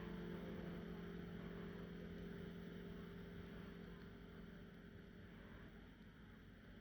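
Howard Miller grandfather clock's chimes ringing out after being struck, several held notes slowly fading away.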